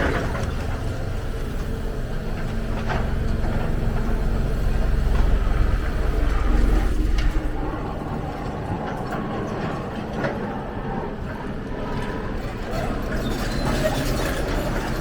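Large tracked excavator's diesel engine running under load, with a few metallic knocks from the working machine. The engine grows louder for a couple of seconds midway, then settles.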